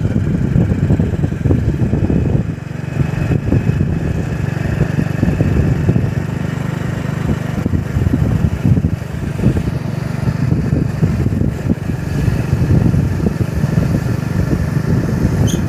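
Motorcycle engine running steadily at low speed while riding along, a continuous low rumble.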